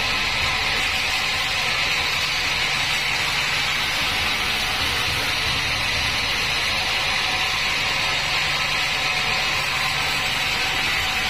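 Large band sawmill running steadily: an even hiss over a low motor hum, with no change in level.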